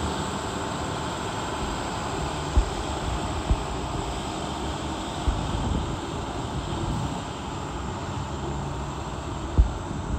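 The 7.6-litre Maxforce diesel of a 2009 International WorkStar 7300 bucket truck running steadily as the truck drives slowly over gravel, tyres rolling on the loose stones. A few short low thumps come through along the way.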